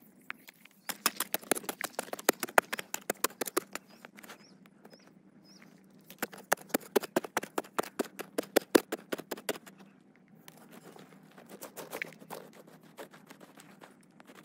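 Two runs of quick, sharp tapping or knocking, each about three seconds long, with a few faint high chirps in the pause between them.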